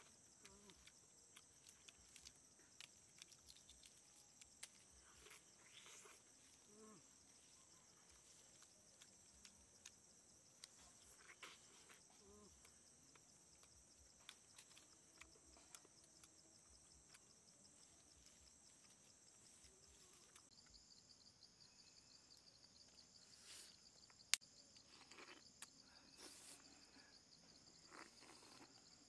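Faint, steady high-pitched drone of insects in the forest; about two-thirds of the way in it changes to a slightly lower, rapidly pulsing call. Scattered soft clicks sound over it.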